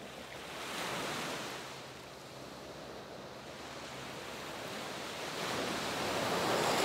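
Sea surf washing in as a steady rush of noise, swelling about a second in, easing off, then building again toward the end.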